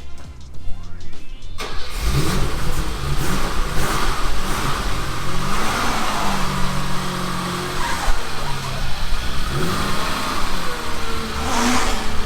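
BMW E28 535is's 3.4-litre straight-six running and being revved, its pitch rising and falling, with background music over it.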